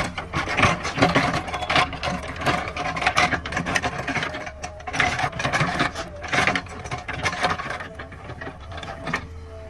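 Backhoe loader engine running steadily under irregular crunching, scraping and cracking as the machine tears through brush and wood while clearing land.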